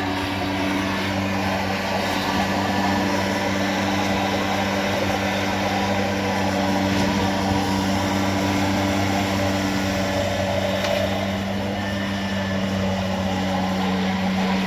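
Gasoline pressure washer engine running at a steady speed, a constant drone.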